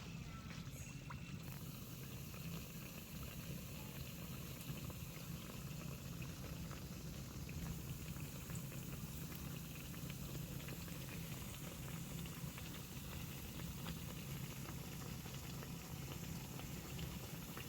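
Spoonfuls of akara bean-flour batter deep-frying in hot oil: a steady sizzle with fine crackling, over a low steady hum.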